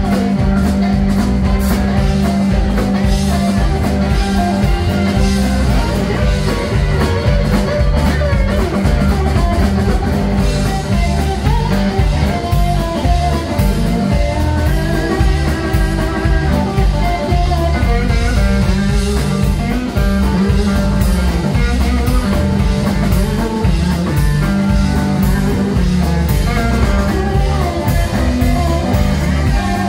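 Live blues-rock band playing with a steady beat: electric guitar over bass guitar and drum kit.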